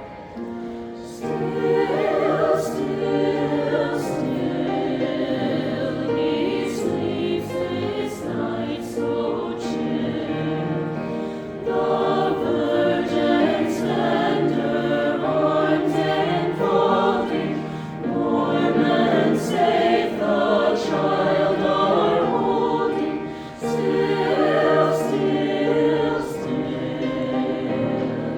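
Choir singing in parts; the voices come in strongly about a second in and go on in phrases with brief breaths between them.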